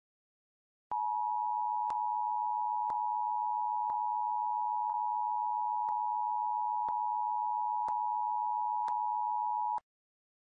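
A single steady electronic beep tone starts about a second in, holds for about nine seconds and cuts off suddenly. A faint tick sounds once a second throughout.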